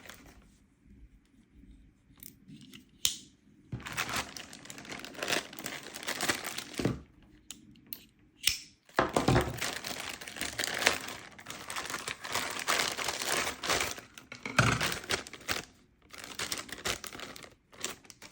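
Crinkling and rustling of material being handled, with tearing sounds, in irregular spells; mostly quiet for the first few seconds, then busy from about four seconds in.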